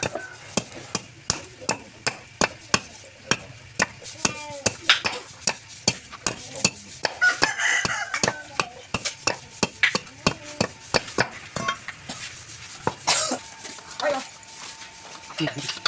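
Rhythmic light tapping, about two to three sharp taps a second, with a metallic, utensil-like character.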